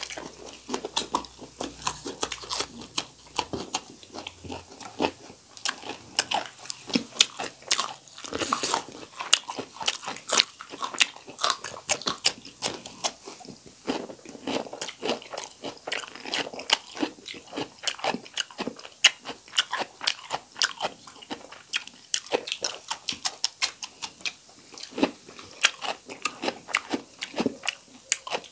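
Close-miked crunching and chewing of raw cucumber slices and green chillies: a dense, continuous run of sharp, crisp bites and chews.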